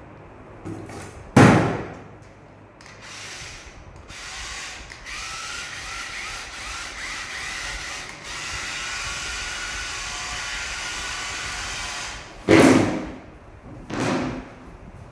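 A toy RC dump truck's small electric motor and gears running steadily for several seconds in the middle, with a few sharp knocks or thumps before and after, the loudest about a second and a half in.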